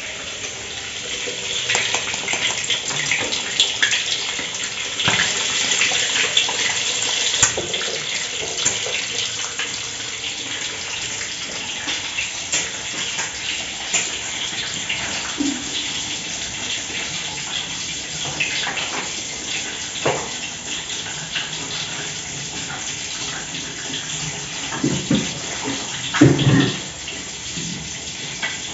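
An egg frying in hot oil in a wok: a steady sizzle with crackles that starts about a second and a half in, is loudest over the first several seconds, then eases. A louder knock near the end.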